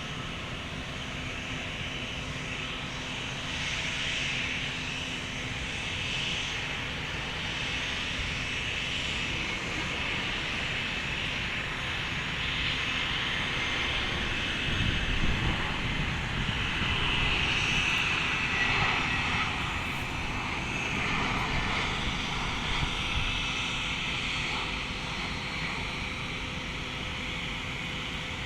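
Jet airliner on landing approach, its engine noise and high whine building to the loudest point about halfway through and then easing off as it passes.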